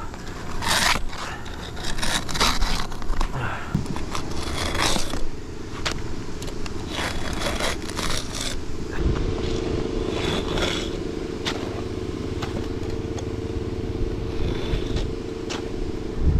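Asphalt shingles scraping and rustling as hip shingles are handled and cut. A steady machine hum comes in about nine seconds in.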